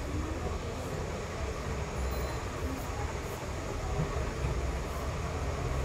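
Steady low rumbling background noise with an even hiss above it, with a few faint light ticks.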